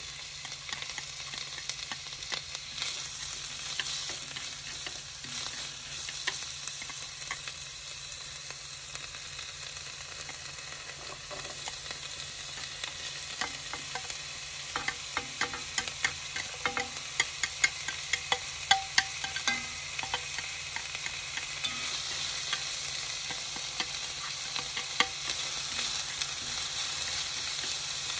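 Chopped onion and bell peppers sizzling as they fry in a hot pan, with a steady hiss. Chopsticks scrape and tap against the plate and pan as the vegetables are pushed in and stirred, with a run of sharp clicks about halfway through.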